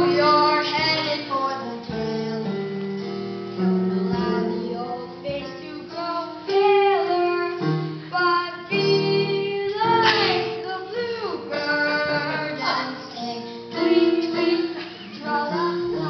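A young performer sings a comic show-tune solo over instrumental accompaniment, with held notes and one loud, higher note about ten seconds in.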